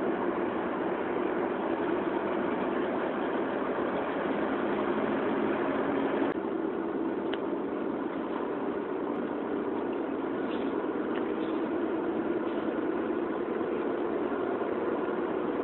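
Steady engine and road noise heard from inside a moving vehicle.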